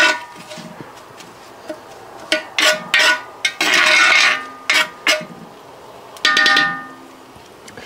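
Metal spoon clinking and scraping against a cast-iron Dutch oven while stirring herbs and shallots in pan drippings: a string of ringing clinks, with a longer scrape about four seconds in.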